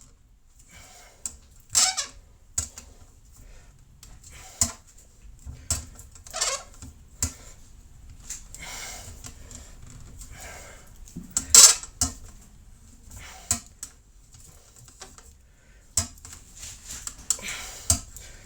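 Irregular metal clinks and taps, with rubbing and scraping sounds between them, from hand tools working on a brass trumpet during dent repair. The loudest clink comes a little before the middle.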